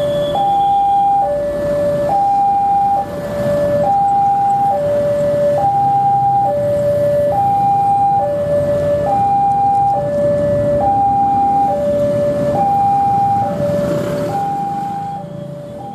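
Railway level-crossing warning alarm sounding a steady two-tone high-low signal, each tone held just under a second, warning that a train is about to pass. Traffic rumbles underneath.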